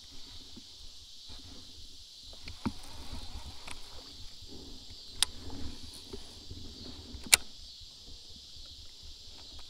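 Steady high-pitched insect chorus, with a few sharp clicks from handling a baitcasting rod and reel in a kayak, the loudest two about five and seven seconds in.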